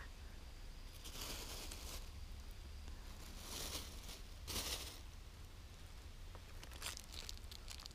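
Black plastic bag rustling and crinkling as it is handled, in three short bursts, followed by a few light clicks and taps.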